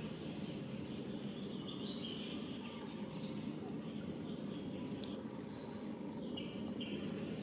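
Birds chirping in short high calls, several falling quickly in pitch in the second half, over a steady low background rumble.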